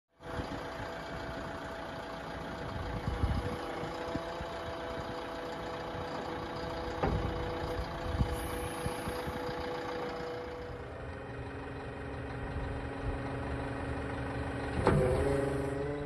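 JCB 3DX backhoe loader's diesel engine running steadily, with a few sharp knocks from the machine, the loudest one near the end.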